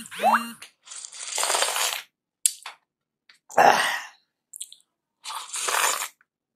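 A person slurping dal and rice off a plate, with three long, noisy slurps and short wet lip smacks between them.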